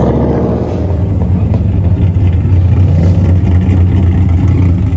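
Ford Mustang exhaust rumbling loud and deep as the car drives slowly past at low revs.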